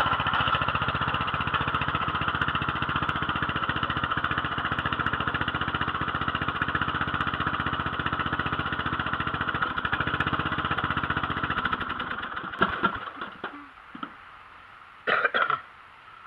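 Bolens lawn tractor engine running steadily, then shut off about twelve seconds in. A few knocks and one short, loud sound follow near the end.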